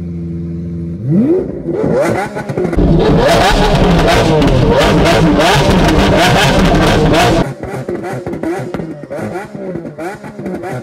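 Lamborghini Aventador SV's V12 idling, then revved up about a second in and blipped hard over and over, with exhaust crackles and pops over the rising and falling revs. After about seven seconds it drops back to lighter, quicker blips.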